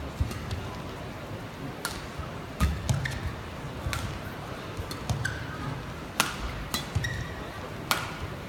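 Badminton rally: racket strings striking the feather shuttlecock, back and forth about once a second, with court shoes squeaking and thudding on the court floor over the murmur of a large indoor crowd.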